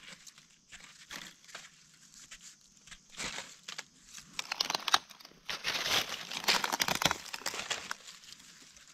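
Dry fallen leaves crackling and rustling as gloved hands and a knife dig through the leaf litter and soil around a wild mushroom. The crackling is sparse at first, grows dense about three seconds in and thins out just before the end.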